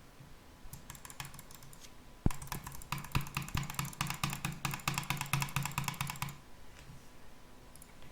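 A computer mouse button being clicked as fast as possible for a click-speed test: a few light clicks, a sharp knock about two seconds in, then a fast, steady run of clicks for about four seconds that stops abruptly.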